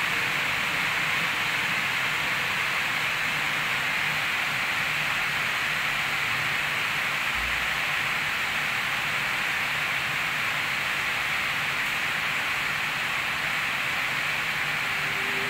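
Steady, even hiss, with no distinct events.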